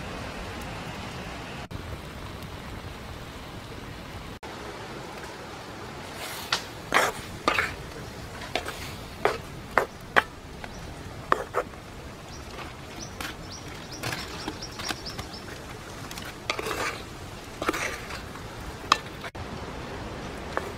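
Squid cooking in a clay pot over a wood fire, with a steady hiss. About six seconds in, a wooden spoon starts stirring, knocking sharply against the clay pot a dozen or so times, roughly once a second.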